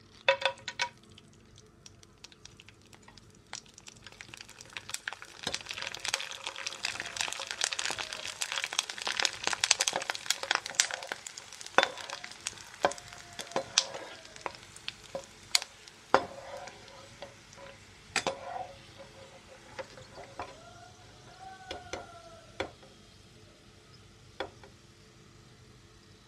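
Dried rice-flour danori crackers frying in hot oil in a pan: a dense sizzle and crackle as they puff up, building a few seconds in, loudest for several seconds, then dying away toward the end. A slotted steel skimmer stirring them gives a few sharp taps against the pan.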